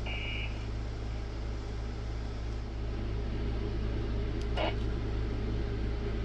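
Steady low hum and whir of a small fan or motor. A short high beep sounds at the very start, and a brief squeak comes about four and a half seconds in.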